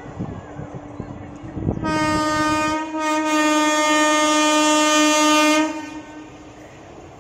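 Indian Railways electric locomotive horn sounding two blasts, a short one of about a second and then a longer one held for nearly three seconds. Before the horn, rail noise knocks and clatters.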